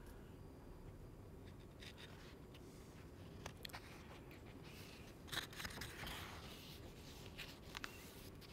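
Pages of a paperback book being leafed through: faint paper rustles and small clicks, the loudest cluster a little past the middle, over quiet room tone with a low hum.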